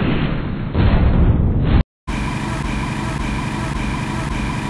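A loud low rumble that cuts off suddenly just under two seconds in, followed by open-air market ambience with a faint steady high hum.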